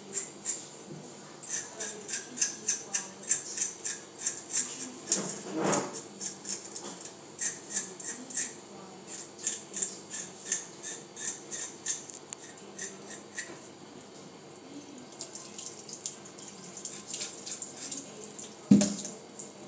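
A fork scraping the scales off a whole fish in a stainless steel sink, in quick repeated strokes, about three a second. A thump about a third of the way in and a louder knock near the end, with the tap running near the end.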